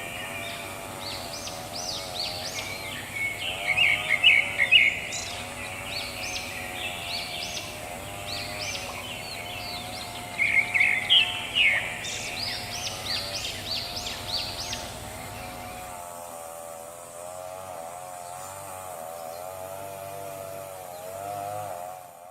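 Wild birds chirping in quick bursts of calls and trills, loudest around four to five seconds in and again around eleven seconds, over a steady wavering hum; the birdsong stops about sixteen seconds in and the hum goes on.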